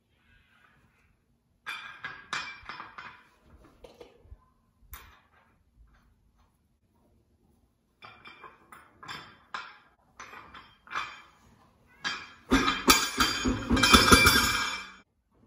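Small metal parts clinking and clicking against a steel trailer wheel as they are handled at its hub. Near the end, a loud clattering rumble for about two and a half seconds as the tire and wheel come down flat onto the concrete floor.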